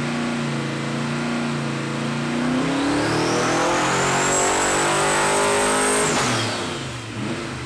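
Twin-turbo 427 cubic-inch small-block Ford V8 making a pull on a hub dyno: the engine holds steady for about two seconds, then the revs climb with a high whine rising alongside, and about six seconds in the throttle closes and the revs fall away.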